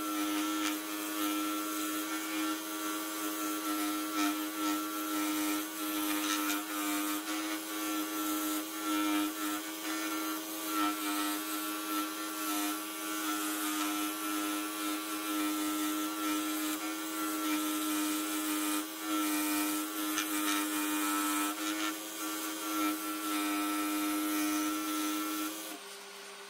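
Pégas 21-inch scroll saw running and cutting through a thick wooden disc with a fine fretsaw blade: a steady motor hum under the rasp of the reciprocating blade in the wood. The saw stops near the end, leaving a quieter hum.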